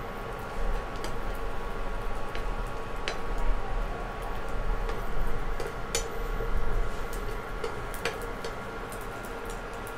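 Spatula scraping and tapping against a nonstick frying pan, with a few sharp clicks, as the edges of an egg omelette are folded over bread. Under it runs a steady hiss of the egg frying in butter.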